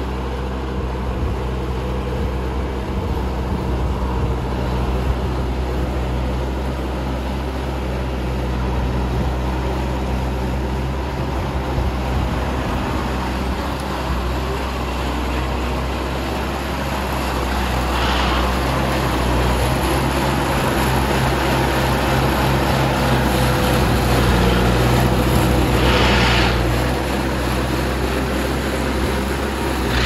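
Engine of rice harvesting machinery running steadily under a constant mechanical din, with three short hissing rushes in the later part.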